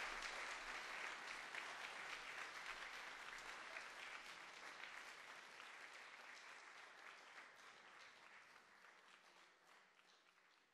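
Audience applause, many hands clapping together, fading steadily until it is barely audible near the end.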